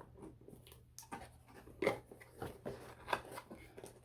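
Cardboard box and paper packing being handled while a camera box is opened: light scattered rustles and taps, a few louder clicks.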